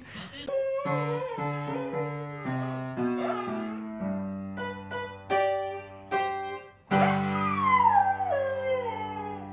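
A dog howling along to piano notes: two long howls that slide downward in pitch, the second, about seven seconds in, the loudest, over notes and held chords on a piano.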